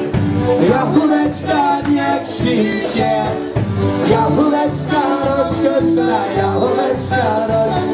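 Live polka band playing a polka, with accordion leading over a steady bouncing bass beat.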